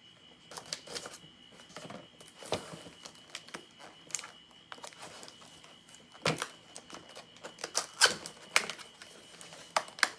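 Hands opening a cardboard product box and handling its contents: irregular clicks, taps and rustles of cardboard, plastic and paper, sharper and louder in the second half, over a faint steady high tone.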